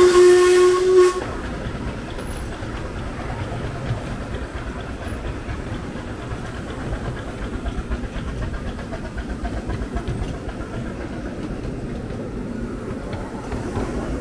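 Miniature steam locomotive's whistle sounding one steady pitch until about a second in, then the train running steadily along the track, its wheels rumbling on the rails.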